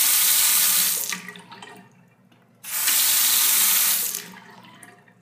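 Bathroom sink faucet running, its stream splashing into the porcelain basin by the drain, in two spurts: the first stops a second or so in, the second starts about two and a half seconds in and runs about a second and a half before shutting off.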